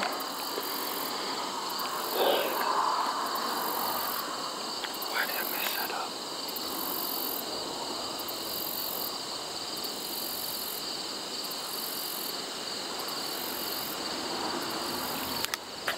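Steady chorus of crickets and other insects trilling, with a higher buzz that switches on and off every second or two. A short, louder sound stands out about two seconds in.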